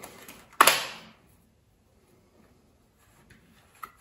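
A single sharp clack about half a second in, from handling and opening a watercolour paint set on the workbench, with light rustling around it and a small click near the end.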